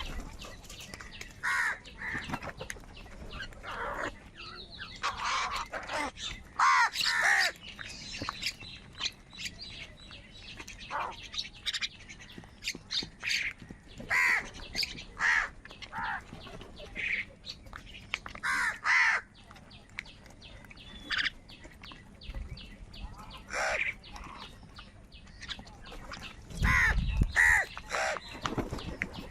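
A group of crows cawing again and again, with short harsh calls overlapping and coming in bunches; several loud calls stand out.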